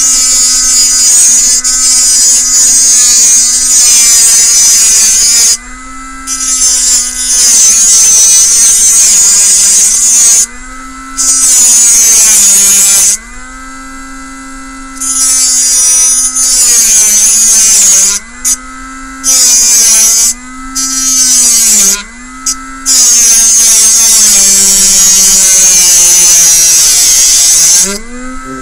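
Cordless rotary tool with a small, worn-down cutting disc cutting into a model part in short passes. The motor's whine dips in pitch each time the disc bites and recovers when it eases off, with a harsh high grinding hiss during each cut, let up briefly several times.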